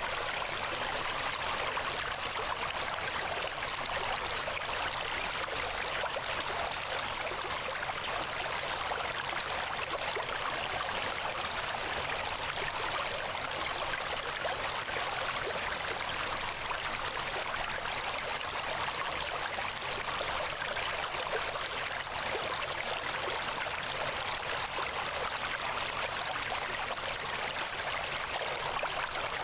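Steady, unchanging rushing noise like running water, mostly hiss with little low end.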